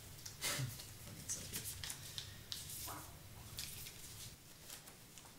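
Quiet rustling and a scattering of light clicks and taps, the sounds of someone handling small objects.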